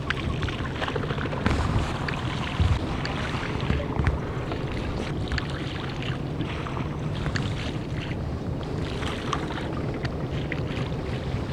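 Wind rumbling steadily on the microphone, with scattered small clicks and knocks over it.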